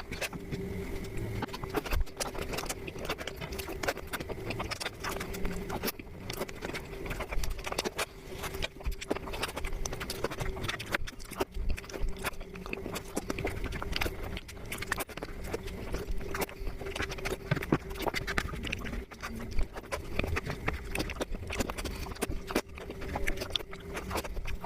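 Close-miked eating sounds: chewing and mouth smacks making a dense, irregular run of short clicks, over a steady low hum.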